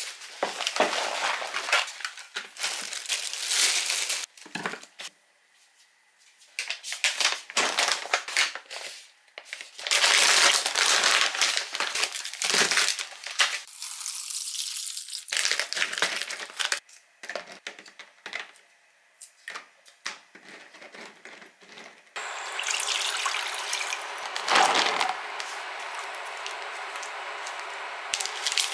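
Plastic food packaging crinkling and tearing as it is handled and opened by hand, in irregular bursts with short pauses. Near the end a steady hiss comes in, and a burst of clattering and splashing as rice cakes are tipped into a pan of water.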